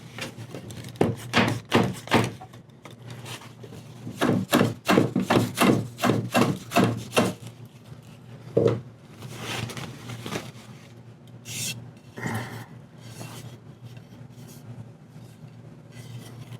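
Hand tool scraping wood in quick repeated strokes, about three a second, in two runs, then a few longer, hissier scrapes: old dried hide glue being cleaned out of an antique chair's dovetail joint.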